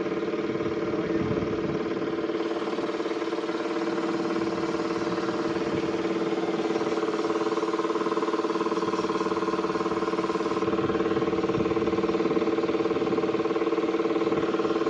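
An engine or motor running steadily, a constant hum that holds the same pitch throughout.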